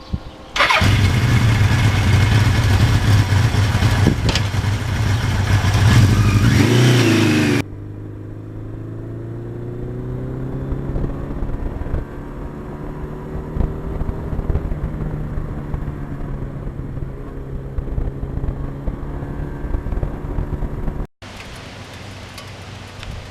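A 1982 Suzuki GS1100E's air-cooled inline-four engine running on the road. For about the first seven seconds it is loud and heavy with wind noise. It then turns to a quieter, steady engine note whose pitch slowly rises. The sound breaks off abruptly a few times, dropping to a quieter background near the end.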